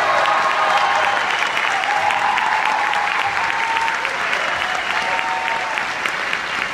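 Theatre audience applauding steadily, with a few voices calling out over the clapping.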